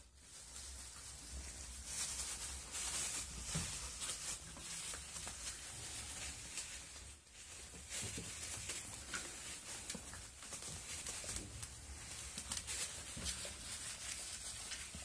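Spanish Alano puppies scuffling and moving about: a run of faint scratches, taps and patter over a low steady hum.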